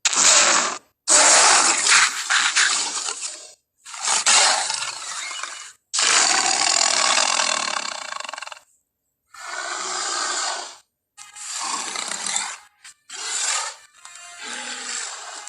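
A run of gorilla call sound effects: about eight rough, noisy calls, each lasting from a fraction of a second to a couple of seconds, with short silent gaps between them.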